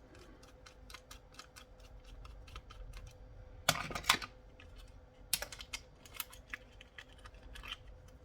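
Light clicks and taps of a plastic radio-control handset casing being worked apart by hand and with a small screwdriver, with a louder clatter of knocks about four seconds in and again a second or so later.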